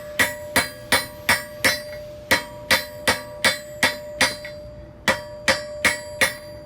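Blacksmith's hand hammer striking hot iron on an anvil, working the sides of a forge weld to close the seam. Blows come about three a second, the anvil ringing between them, with a short pause about four and a half seconds in before they resume.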